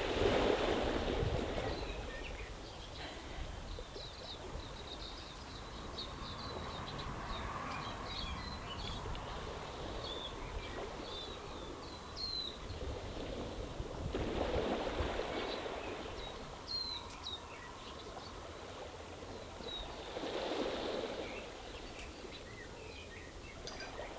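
Small waves washing in over a stony beach, swelling three times: at the start, about halfway and near the end. Birds chirp briefly and repeatedly throughout.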